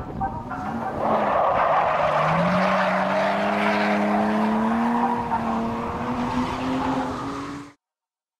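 BMW E36 drifting: the rear tyres squeal through a long slide while the engine runs hard, its note climbing about two seconds in. The sound cuts off suddenly near the end.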